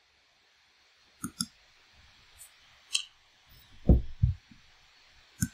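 Scattered clicks of a computer mouse: a quick pair about a second in, then single clicks, two of them heavier with a low thud about four seconds in.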